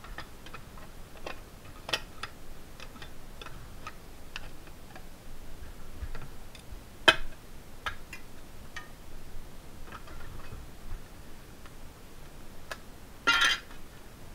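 Hand-lever bench shear cutting sheet metal: a series of irregular sharp clicks and snips as the blade bites along the cut line, the loudest about seven seconds in. A short scraping rasp comes near the end.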